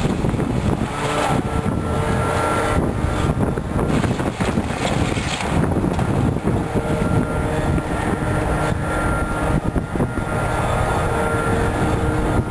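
Wind buffeting the microphone over a John Deere excavator at work tearing down a building: the machine runs with a faint steady whine, and debris crashes and crunches now and then.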